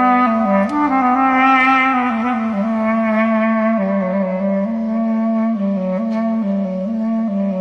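Sad instrumental ringtone music: a slow melody of held notes on a wind instrument.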